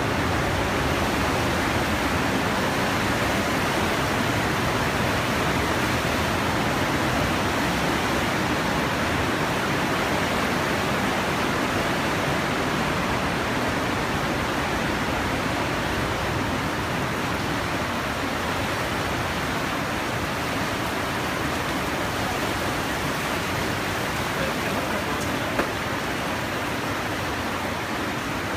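The Partnach river rushing through its narrow rock gorge: a steady, even rush of white water that eases off slightly near the end, with one short click shortly before the end.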